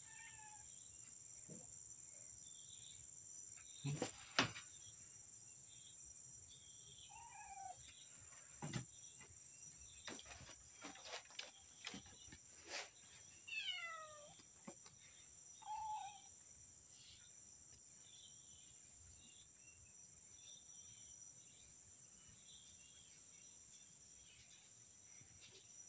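Domestic cats meowing now and then: several short meows that fall in pitch, spread over the first sixteen seconds. A steady high insect trill runs underneath, and a few knocks and taps come through, the loudest about four seconds in.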